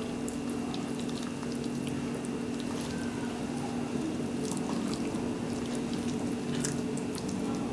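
Hands squishing and kneading milk-soaked bread in a plastic tub, giving soft wet squelches and small clicks over a steady low hum.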